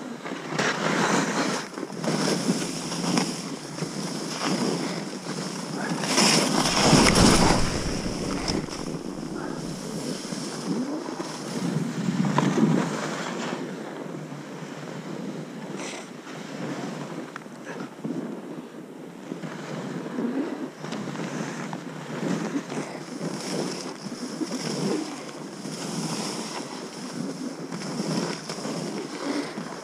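Snow hissing and swishing under a downhill slide through powder, with wind buffeting the camera microphone. The rushing swells and fades throughout, and a strong gust of wind noise about seven seconds in is the loudest moment.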